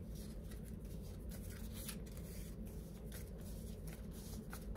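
A stack of puzzle sticker sheets being flipped through by hand: quiet rustling with many small flicks and ticks as the sheets slide over each other.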